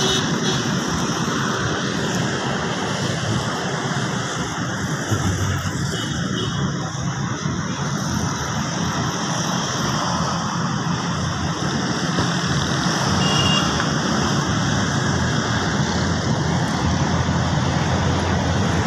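Steady road traffic noise, an even rumble and hiss of passing vehicles, with a few brief high tones here and there.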